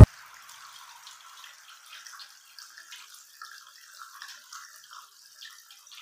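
Water from a homemade PVC-pipe fountain spilling from the pipe elbows into plastic bowls and a plastic tub below. It makes a faint, steady trickling and splashing with small drips.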